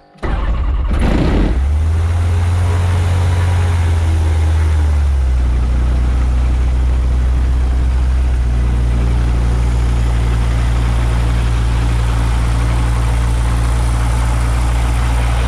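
Gyrocopter's Rotax 915 turbocharged four-cylinder aircraft engine running steadily at low power, coming in suddenly at the start with a brief sweeping whine about a second in. Its low drone shifts slightly in pitch about five seconds in.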